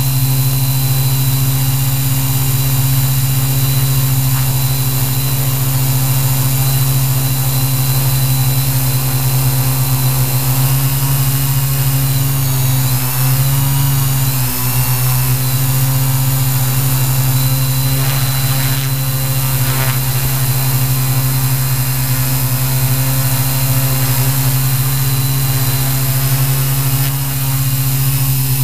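Q800 multirotor drone's electric motors and propellers humming steadily, heard from its own onboard camera, with the pitch wavering briefly about halfway through.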